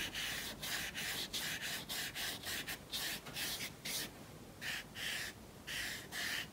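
Flat watercolour brush scrubbing in short strokes across rough watercolour paper, about three a second, with a brief pause about four seconds in, as texture is worked into the paint.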